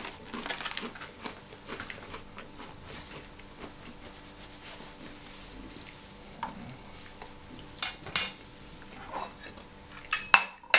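Crinkling of an MRE cracker packet at the start. Then, after a quieter stretch, metal cutlery clinks on a china plate: two sharp clinks close together about eight seconds in and a few more near the end as the plate is moved.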